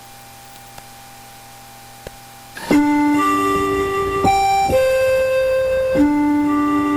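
Keyboard music with held chords begins about two and a half seconds in. Before it there is only a low hum and two faint clicks.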